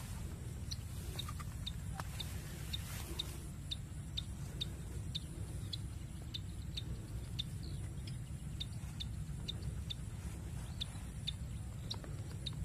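Wind buffeting the microphone as a steady low rumble, with short high chirps repeating about twice a second.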